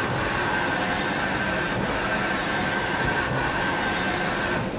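Hardinge VMC-1000-II vertical machining center running: a steady mechanical hum and rush with a thin high whine held on one pitch.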